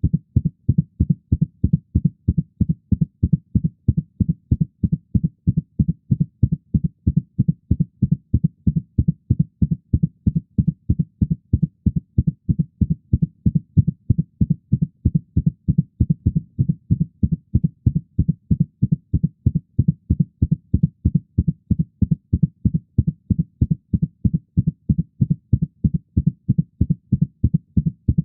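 Heartbeat sound effect: a fast, steady rhythm of dull, low thumps that keeps an even pace.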